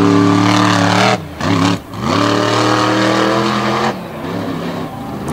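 Monster truck engine revving hard at high rpm. The throttle comes off twice about a second in, then the revs climb steadily and ease off lower near the end.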